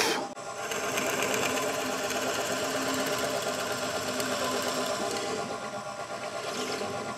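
A short noisy burst at the start, then a drill press running steadily as its 5 mm bit bores a hole about an inch deep into a walnut guitar body.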